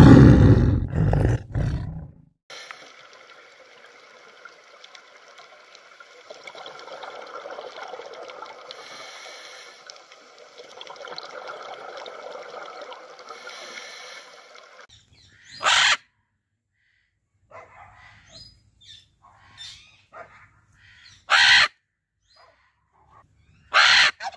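A tiger's roar dies away in the first two seconds, followed by a long stretch of faint, steady hiss. Later, a blue-and-yellow macaw gives three loud, harsh squawks several seconds apart.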